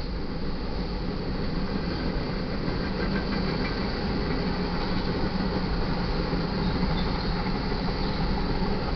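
Manifest freight train cars rolling steadily past: a continuous rumble of steel wheels on the rails.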